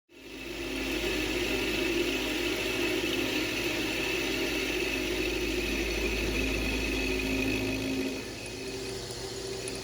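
Metal lathe running steadily with a 5/8-inch end mill held in its chuck, machining a hanger slot in a forged spur. The sound starts abruptly and drops a little about eight seconds in.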